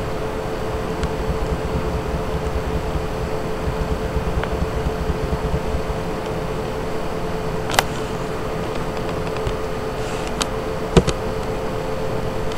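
Steady machine hum with a constant mid-pitched tone. A few sharp clicks come through it in the second half, typical of a computer mouse clicking.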